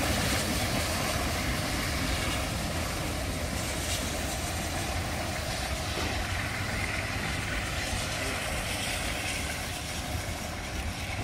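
A steam locomotive and its carriages running away down the line, the noise fading steadily as the train draws off.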